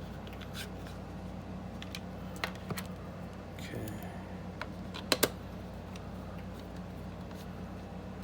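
Small screws being turned in by fingertip into a plastic BB pistol frame: scattered light clicks and ticks of screw and plastic parts, with a sharp double click about five seconds in, over a steady low hum.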